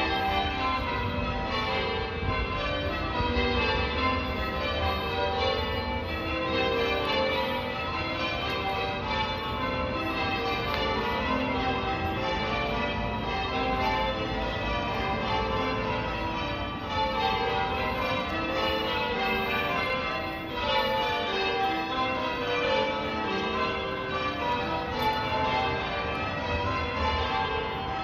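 Church tower bells rung in changes: a continuous rapid succession of bell strokes, the bells sounding one after another in repeating descending sequences.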